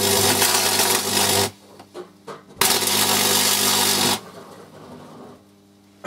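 High-voltage electric arc, about 4,200 volts from two microwave oven transformers wired in parallel, burning into an orange: a loud crackling, buzzing arc for about a second and a half, a brief break with a few pops, then a second arc of about the same length that stops about four seconds in, leaving a faint hum.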